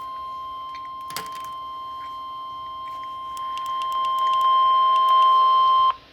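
NOAA Weather Radio 1050 Hz warning alarm tone: one steady high tone that grows louder in steps partway through and cuts off suddenly near the end. It is the alarm sounded for the National Weather Service's required weekly test.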